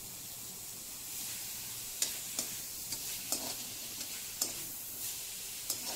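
Chopped capsicum, green chilli and onion sizzling steadily in oil in a metal kadai, with a metal spatula stirring and scraping against the pan, giving sharp clicks and scrapes several times from about two seconds in.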